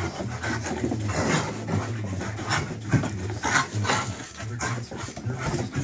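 Bouvier des Flandres dogs panting hard in a rough play fight, with a run of quick, breathy bursts.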